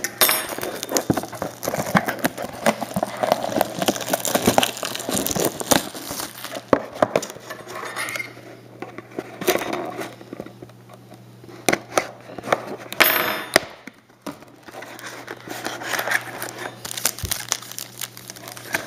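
Plastic shrink-wrap crinkling and tearing as a sealed box of trading cards is unwrapped and opened, with many sharp crackles and a short lull about 14 seconds in.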